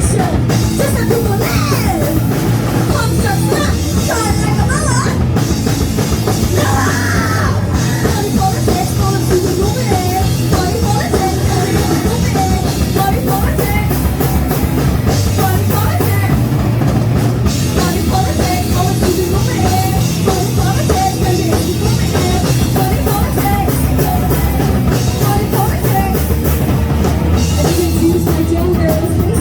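A live punk rock band playing loud and without a break, with a drum kit driving under the full band.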